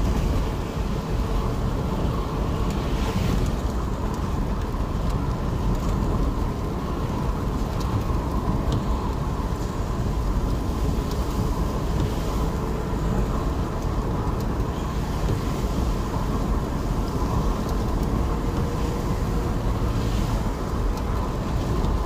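Steady road and engine noise inside a car driving on a rain-wet road, with a few brief hissy sweeps from the windscreen wipers, about every eight or nine seconds later on.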